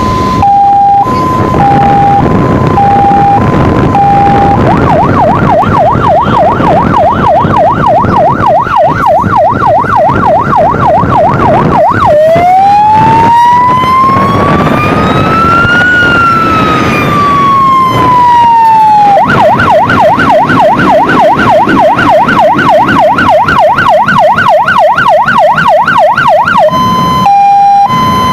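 Fire engine siren on a MAN GBA water tender running on an emergency call, switching modes. It opens with a two-tone hi-lo, changes to a fast warble, then gives one slow wail that rises and falls over about seven seconds in the middle, goes back to the fast warble, and returns to the hi-lo near the end, with the truck's engine rumbling underneath.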